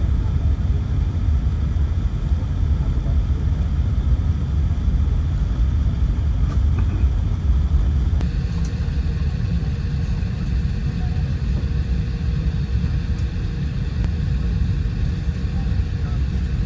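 Steady low rumble of a vehicle in motion, with a slight change in tone about eight seconds in.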